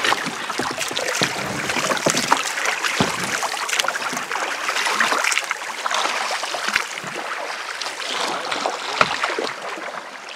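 Kayak paddles dipping and splashing in river water, with many small splashes and drips off the blades.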